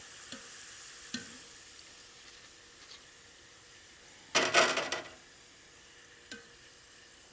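Thin potato slices sizzling in boiling lard, the sizzle soft and fading over the first couple of seconds, with a few light clicks of metal tongs. About four and a half seconds in, a loud metal clatter as the fried chips are lifted out with the tongs onto a wire rack.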